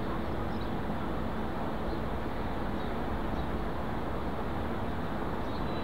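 Boeing 747-400 freighter's four jet engines at taxi idle, heard from a distance: a steady, even hiss with a faint low hum.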